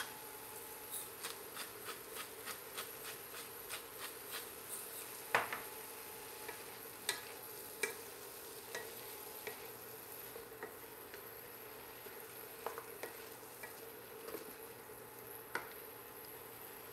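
Diced vegetables sizzling quietly in a skillet. A pepper grinder clicks in a quick run of turns over the first few seconds, about three clicks a second, then a wooden spoon stirs and knocks now and then against the pan.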